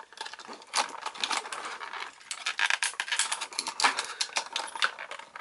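Clear plastic packaging crinkling and hard plastic toy parts clicking and rattling as an action figure is twisted loose from its packaging, a quick irregular run of sharp clicks.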